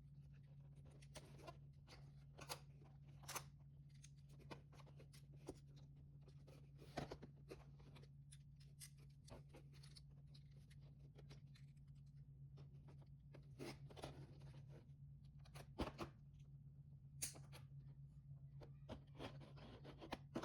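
Scattered soft clicks and small knocks of plastic Lego pieces being handled, some louder than others, over a steady low electrical hum.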